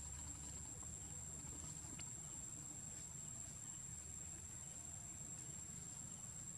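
Steady, high-pitched drone of forest insects, one unbroken whine held at the same pitch throughout.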